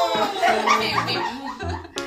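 Background music with a regular low beat, and women laughing over it.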